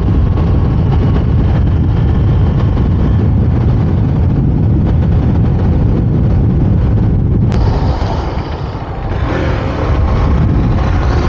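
KTM Duke 390's single-cylinder engine running at road speed under heavy wind and road noise, a steady low rumble. About eight seconds in there is a sharp click, and the sound dips briefly as the bike slows down.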